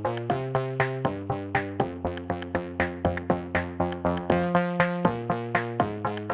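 Background music: quick, evenly spaced pitched notes, about four a second, over held bass notes that change every second or so.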